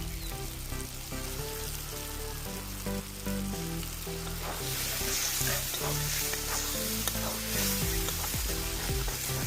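Small pieces of chicken sizzling as they fry in hot spiced masala in a kadai while being stirred, the sizzle growing louder about halfway through.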